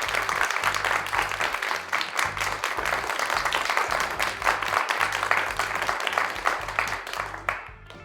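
Crowd applauding, a dense clatter of many hands clapping that fades out near the end, over background music with a steady bass line.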